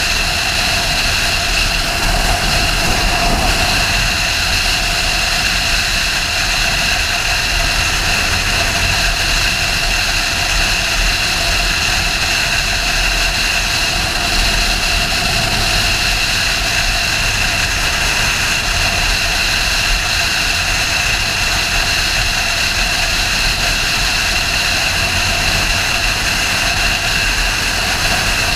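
Sportbike engine running at a steady cruising speed, with a steady rush of wind noise on the microphone.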